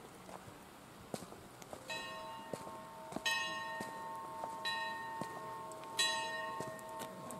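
Bells ringing: four strikes about a second and a half apart, starting about two seconds in, each ringing on over the next. Footsteps on a paved path.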